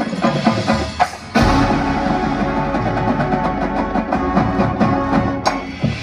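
Marching band playing: sustained brass and woodwind chords over rapid drum strokes, with a brief drop about a second in, then a sudden cutoff near the end.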